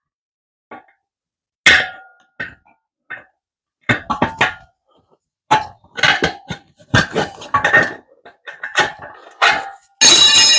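Steel tire irons clanking and scraping against a dirt bike's well-worn spoked wheel rim while the rim lock is worked out from under the tire: a run of sharp metal knocks, some ringing briefly, then a louder, longer scraping rattle near the end.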